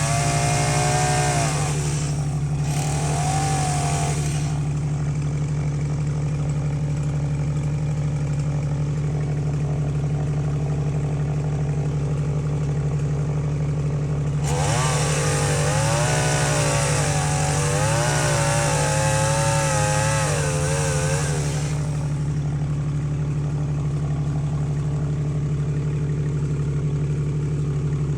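Small two-stroke chainsaw idling steadily, revved up three times to cut into a tree branch: briefly at the start, again about three seconds in, and for about seven seconds in the middle, its pitch wavering as it bites into the wood.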